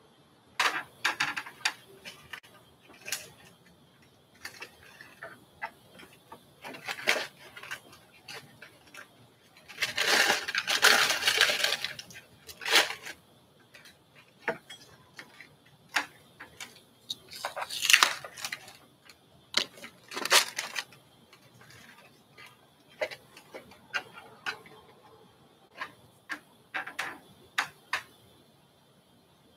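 Irregular clicks, knocks and light clatter of small hard objects being handled on a table, with a longer burst of clatter and rustling about ten seconds in. A faint steady high whine runs underneath.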